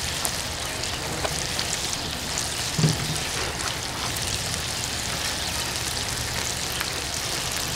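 Chicken sizzling on a grill grate over a charcoal fire, pressed under a cast-iron skillet: a steady crackling sizzle with small pops. A short low hum-like sound about three seconds in.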